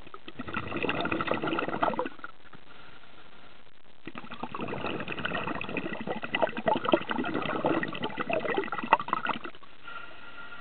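Bubbling and gurgling heard underwater: a short burst, then after a pause of about two seconds a longer bubbling stretch of about five seconds. This is typical of a scuba diver's exhaled bubbles.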